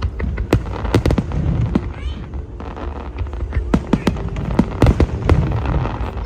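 Aerial fireworks display: a rapid, irregular run of sharp bangs and crackles from bursting shells over a continuous low rumble.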